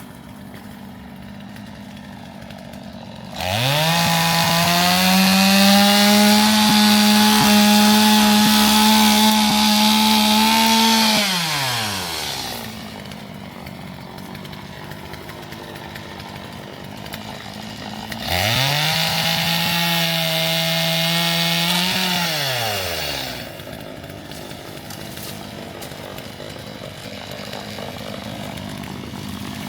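Gas chainsaw run up to full throttle twice, once for about eight seconds and again for about five, its high engine note gliding up at each start and falling away at each finish.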